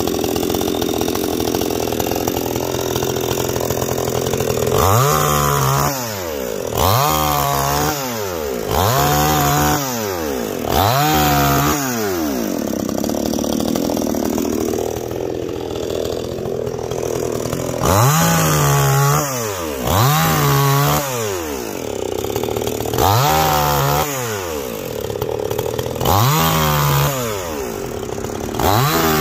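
Neo-tec NCS5800 58cc two-stroke chainsaw running, its engine revved up to high speed and dropped back about nine times.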